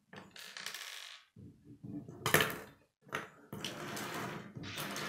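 Loose plastic K'nex rods and connectors clattering against each other and a wooden tabletop as they are pushed around and picked through, in several bursts with a sharp clack about two seconds in.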